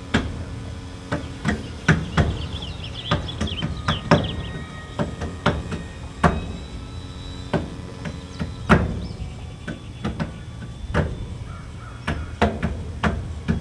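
Sharp knocks, roughly one a second at uneven spacing, over a low steady hum, with a few faint high chirps about two to four seconds in.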